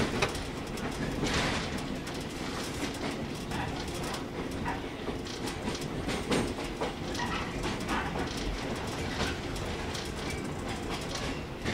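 A train moving slowly through a station, its wheels clicking over rail joints and points, over a steady rumble.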